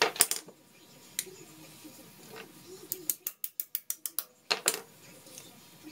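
A hand ratchet with an Allen-head socket clicking in a quick, even run of about nine clicks, with single clicks before it and two louder knocks near the end: backing off the 3/8 Allen-head stud at the bottom of a Case 430 tractor's brake housing.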